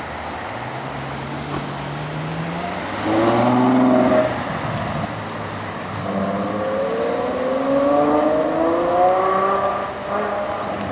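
Ferrari 812 Superfast's V12 accelerating away, its pitch climbing. It is loudest about three seconds in, then climbs again in two rising pulls from about six seconds in.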